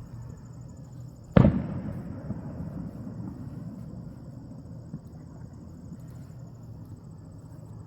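A single firework shell bursting with one loud boom about a second and a half in, its rumble echoing away over the next couple of seconds.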